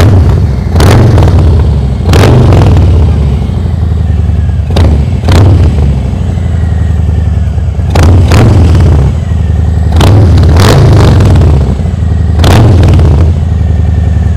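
Harley-Davidson Fat Boy 114's Milwaukee-Eight V-twin running through Vance & Hines exhaust pipes, idling with short throttle blips about nine times. The exhaust is loud enough to distort the microphone.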